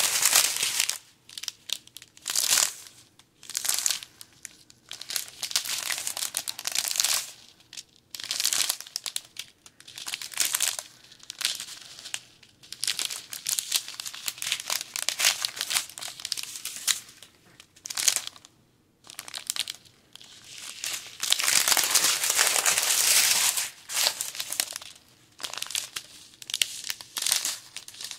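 Small clear plastic zip bags of diamond painting drills crinkling as they are handled and shuffled, in irregular bursts, with a longer stretch of crinkling about three quarters of the way through.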